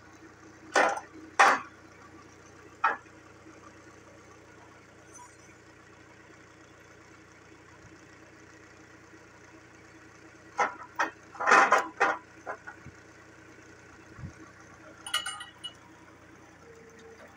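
Heavy old steel truck parts clanking as they are handled and dropped on the ground: two loud clanks about a second in, another shortly after, a cluster of clanks past the middle, and lighter clinks near the end. A steady low engine hum runs underneath.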